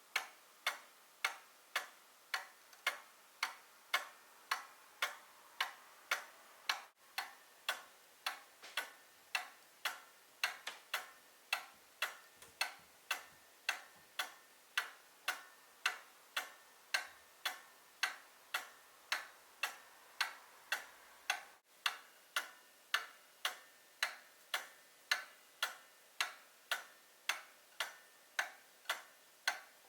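A 130-year-old quail cuckoo clock's pendulum movement ticking steadily, with sharp, even ticks at about one and a half a second.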